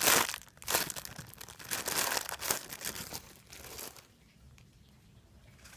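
Crinkling and rustling of plastic packaging as a bread-shaped squishy toy is handled and squeezed, in close irregular crackles that stop about four seconds in.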